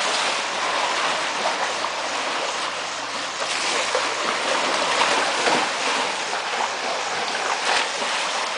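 Sea lions splashing as they swim at the surface of their pool: a steady wash of churning water with sharper splashes here and there.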